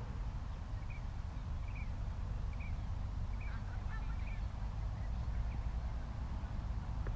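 Wind buffeting the microphone as a steady low rumble, with a series of short bird calls over it, about one a second.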